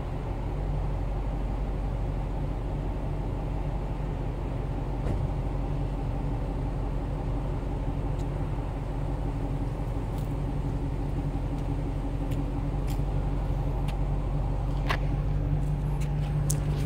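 2016 Dodge Charger R/T's 5.7 HEMI V8 idling steadily through a Gibson cat-back exhaust, a low even rumble. Near the end come a few sharp clicks and knocks as the recording phone is handled.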